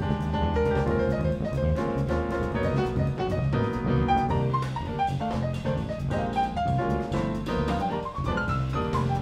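Live jazz: a grand piano solo in quick runs of notes rising and falling, backed by bass and a drum kit keeping time on the cymbals.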